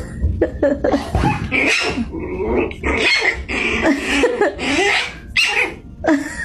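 A puppy vocalizing in a rapid string of short squealing yips and growls, one cry after another with bending pitch, stopping abruptly near the end.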